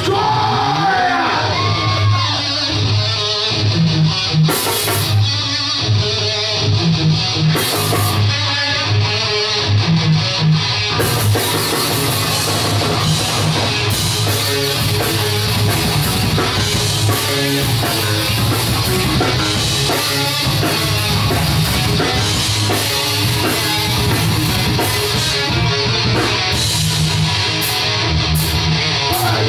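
Live heavy metal band playing: distorted electric guitar riffs over bass, with the drum kit and cymbals playing continuously from about eleven seconds in.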